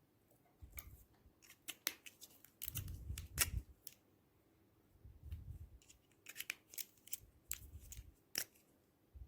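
Slime being squished and mixed by hand: irregular sticky clicks and crackling pops over soft low squelches.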